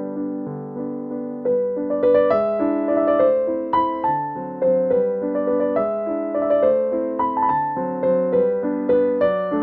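Background piano music: gentle struck notes and chords changing about twice a second in a steady rhythm.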